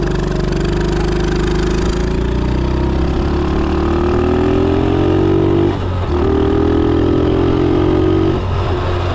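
A motor vehicle engine running and accelerating: its pitch climbs steadily, drops briefly about six seconds in, climbs again, then falls back near the end.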